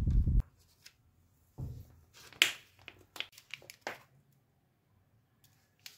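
A few faint clicks and taps from light handling: a soft thump, one sharper click, then several small ticks, followed by near silence.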